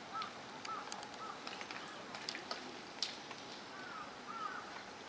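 Faint open-air ambience with a bird calling in short arched chirps, a few at a time, twice over, and scattered light clicks.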